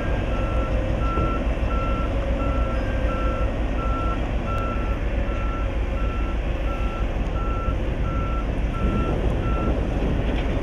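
A heavy machine's reversing alarm beeping at an even rate, about three beeps every two seconds, stopping near the end. Under it, the steady low running of diesel excavator engines.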